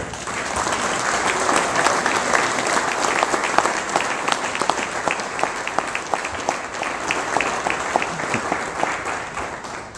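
An audience applauding: many hands clapping together, swelling over the first second or so and tapering off near the end.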